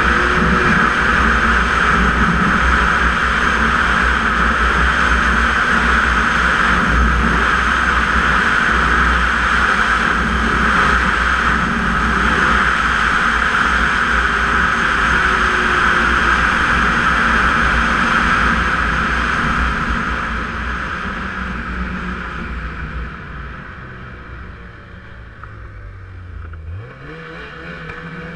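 Snowmobile running steadily at speed, its engine note and track noise loud and even. After about twenty seconds it eases off and grows quieter, and a short rise in engine pitch comes near the end.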